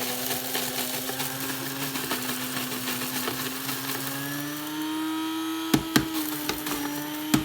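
Black and Decker electric coffee grinder running, grinding coffee beans for stovetop espresso: a steady motor hum that rises slightly in pitch partway through. Several sharp knocks come near the end.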